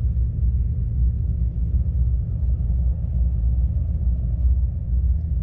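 Small motorcycle engine running steadily with a low rumble.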